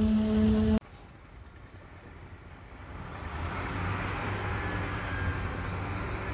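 Steady whining hum of a machine motor that cuts off abruptly about a second in, followed by a quieter low engine hum of site machinery that slowly grows louder.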